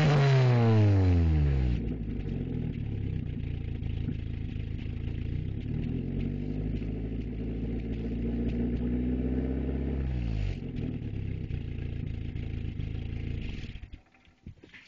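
1994 Volkswagen Jetta GL's four-cylinder engine revved hard at the start, falling back to a fast idle within about two seconds. It then climbs slowly in pitch, drops back about ten seconds in, and the sound stops abruptly near the end. The owner suspects the engine is misfiring or backfiring but cannot tell which.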